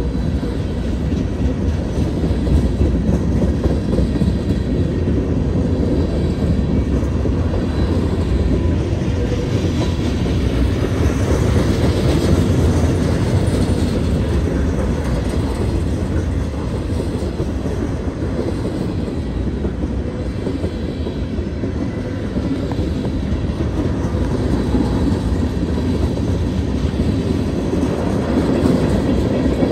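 A CSX freight train's tank cars and covered hoppers rolling past at close range: a steady rumble of steel wheels on rail.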